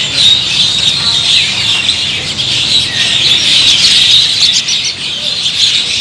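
Dense chorus of many caged birds chirping and twittering together, high-pitched and continuous.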